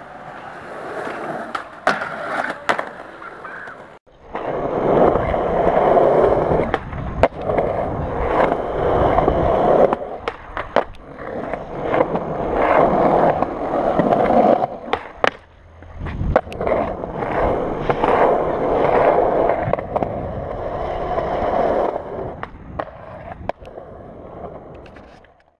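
Skateboard wheels rolling over concrete, a steady rumble broken by many sharp clacks of the board hitting the ground. The rolling breaks off briefly once and fades out near the end.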